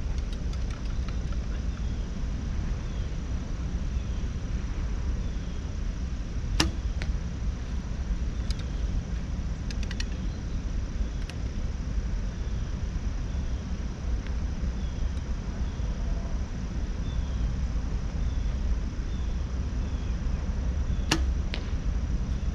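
Mathews V3 compound bow shot twice, about 15 seconds apart: each release is a sharp snap of the string, followed a moment later by a fainter knock.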